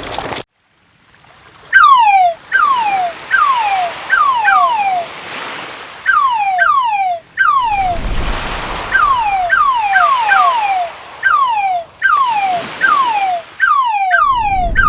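Short falling whistle chirps, about fifteen, repeated at uneven intervals over a steady sound of surf, as an added crab sound effect. A rain-like hiss cuts off just at the start, followed by a brief gap.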